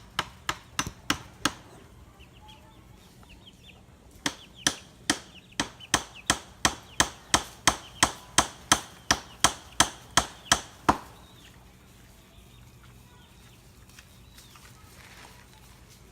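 Hammer driving a nail to fix an electric-fence wire clip to the fence: a few quick strikes, a pause, then a longer run of about seventeen strikes, two or three a second, growing louder. Hens cluck faintly in the pauses.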